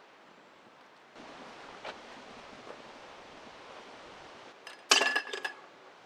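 A soft outdoor hiss with a couple of small snaps, then a quick run of bright metal-and-glass clinks, the loudest sound, as an old hurricane oil lantern is handled.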